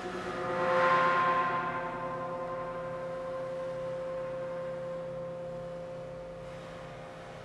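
Cristal Baschet sounding long, ringing tones. Several pitches swell together about a second in, then a single note holds on and slowly fades.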